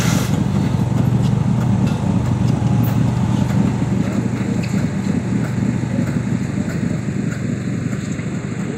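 An engine running steadily at idle, a low even drone, with a few faint clicks and knocks over it.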